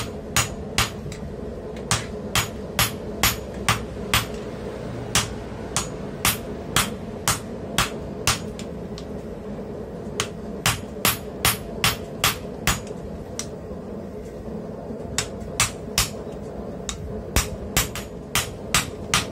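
Hand hammer striking a red-hot steel bar on an anvil, blows coming about two to three a second in runs broken by short pauses.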